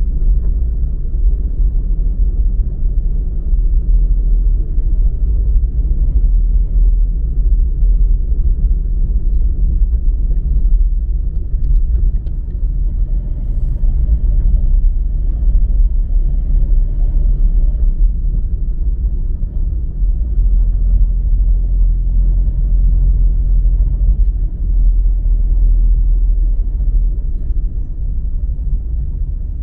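A loud, steady low rumble, with a faint high whine that comes in about a third of the way through and fades out and in again later.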